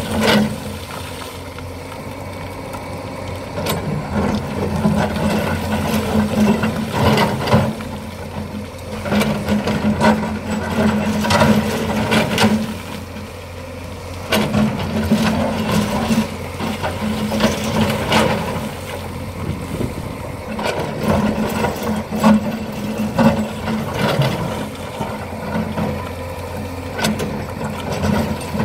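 Excavator's diesel engine running steadily, with irregular louder surges and scraping, clunking noises as the bucket digs into and brings down a high bank of sand.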